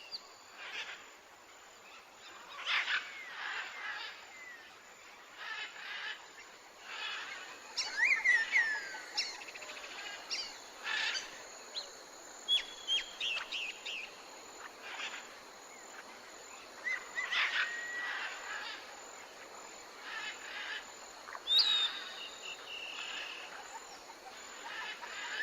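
Fox giving a scattered series of short, high-pitched yips and squeaks, some sliding quickly in pitch, over faint outdoor background hiss.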